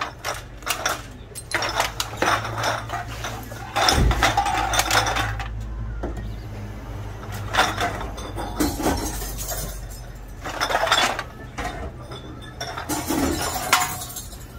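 Glass bottles clinking against each other as they are handled and fed one by one into a reverse vending machine, in irregular sharp clinks. A low steady hum comes in with a thump about four seconds in.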